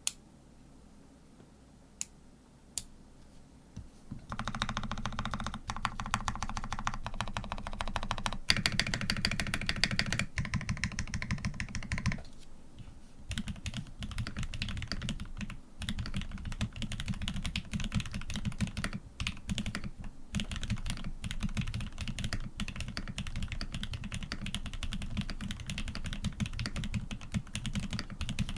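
Typing on a custom PC Montage mechanical keyboard with a polycarbonate plate, PBT keycaps and lubed Aquaking switches. A few single key presses come first, then fast continuous typing from about four seconds in, with a short pause near the middle.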